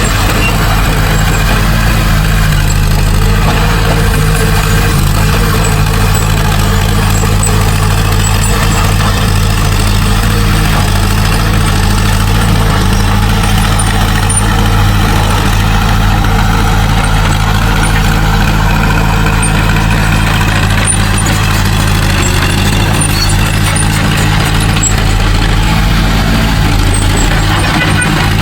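Heavy diesel engine of earthmoving machinery, a bulldozer or dump truck, running steadily with no rise or fall in pace.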